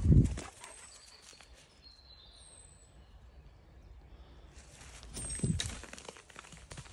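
Woodland birds calling, several short high whistles that slide downward, over quiet outdoor background. A loud low thump right at the start and a cluster of low thumps and rustles about five and a half seconds in, from the moving camera and footsteps on the path.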